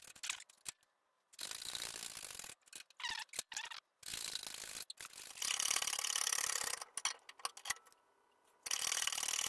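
Red hydraulic bottle jack of a bench press being pumped by its handle, making mechanical working noise as it builds pressure on the urethane over the pattern plate. The noise comes in several stretches broken by abrupt cuts to silence.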